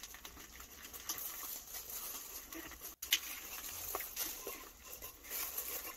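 Faint rustling and scattered light ticks of plastic-gloved hands squeezing and working a hoya's root ball out of its plastic pot. The plant is root-bound and sticks in the pot.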